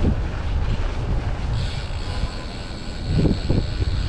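Wind buffeting the microphone on a moving bicycle, with the low rumble of city traffic underneath and gusts that come and go.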